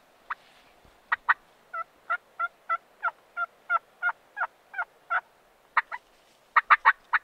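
Wild turkey calling: a run of short, sharp pitched notes, about three a second, with a quicker, louder cluster of notes near the end.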